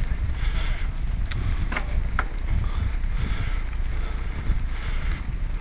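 Mountain bike riding over a dirt trail, heard from a camera carried on the ride: a steady low rumble of wind and trail vibration, with a few sharp rattling clicks from the bike about one to two seconds in.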